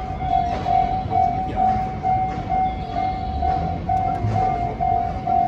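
An Osaka Loop Line train running past, with a rumble that swells in the middle. Throughout, a single electronic tone beeps about twice a second.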